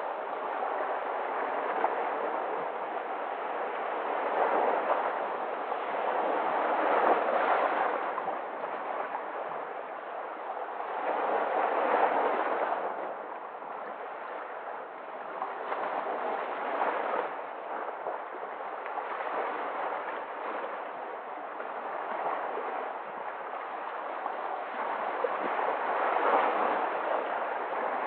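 Sea waves washing in over rocks and breaking into foam, a continuous surf hiss that swells and eases every few seconds, loudest about seven and twelve seconds in.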